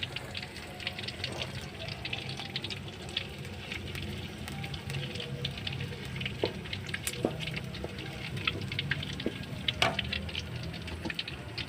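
Food frying in hot oil, a dense irregular crackling and spitting with a few louder pops, over background music.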